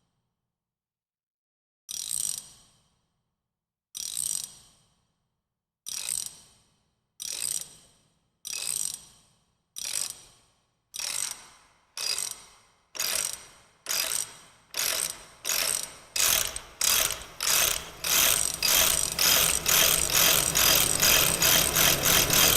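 A series of sharp mechanical clicks, each ringing briefly. They come about two seconds apart at first and speed up steadily until they run at several a second near the end.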